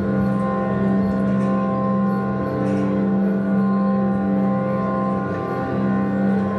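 Live experimental drone music: a thick, unbroken drone of many steady tones held together, loudest low down, with no pauses or strikes.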